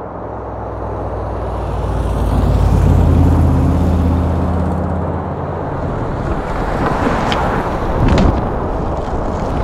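A low rumble that swells for about three seconds and then eases off. Sharp knocks about seven and eight seconds in, as a longboard's deck and wheels strike the asphalt during a flip trick.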